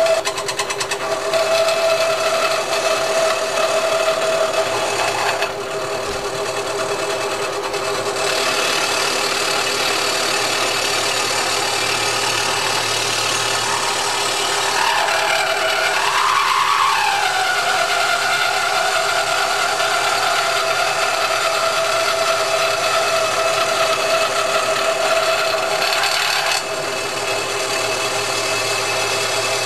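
Vertical milling machine with its end mill cutting into the main bearing bosses of a Porsche 911 engine case, a steady machining whine with several held tones. The pitch briefly glides up and back down about halfway through. This is the boat-tail modification, tapering the bosses to improve airflow inside the crankcase.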